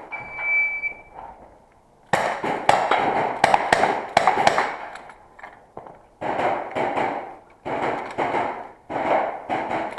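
An electronic shot timer gives one steady high beep about a second long. From about two seconds in, an airsoft revolver fires rapid shots in two strings, each shot a sharp crack with a short ringing tail, with a brief pause about halfway through.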